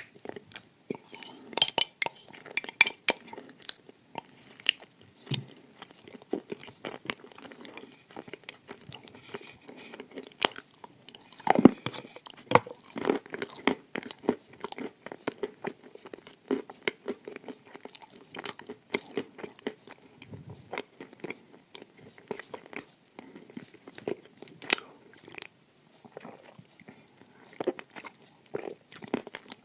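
Close-miked chewing with many small, sharp crunches as a mouthful of crumbly cookie and paste is eaten, and one louder crunch about twelve seconds in.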